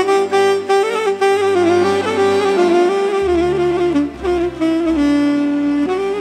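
Instrumental break of Romanian folk party music: a saxophone plays the melody over a steady bass line, which moves to a lower note about three seconds in.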